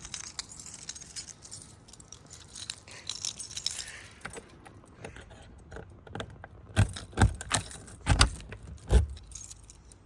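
A bunch of keys jangling lightly for the first few seconds, then about five loud clunks and knocks in the second half, the loudest near the end.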